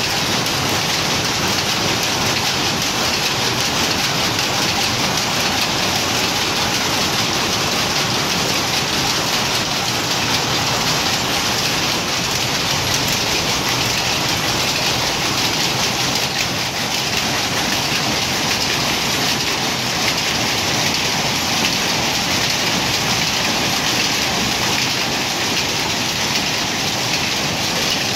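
Power loom running at speed: a loud, dense, steady mechanical clatter that never lets up.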